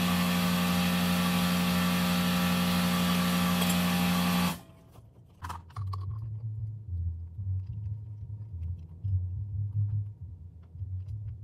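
A steady, loud machine hum with several held tones cuts off suddenly about four and a half seconds in. Then light metallic clicks and scrapes follow as a hub cap is handled and fitted onto a truck wheel hub.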